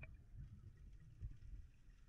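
Near silence underwater in a river: only a faint low rumble, with one small click at the very start.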